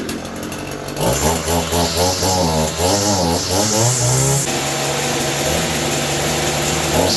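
Power sander running, joined about a second in by a string trimmer whose pitch wavers up and down for a few seconds and then holds steady.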